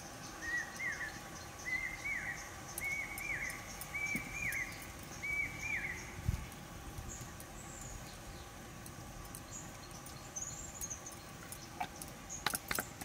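A bird chirping outdoors: a short rising-and-falling call repeated about once a second for the first six seconds, then a few fainter, higher chirps. A few sharp clicks come near the end.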